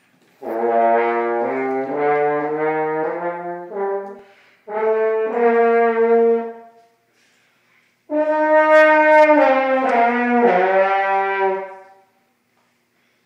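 French horn played live in three phrases of held notes that step between pitches, with short breaks between the phrases.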